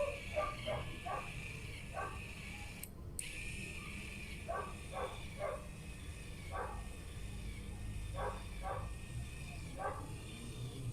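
Small dog yipping and whimpering in short, separate calls, several in quick groups, over a faint steady high-pitched hum.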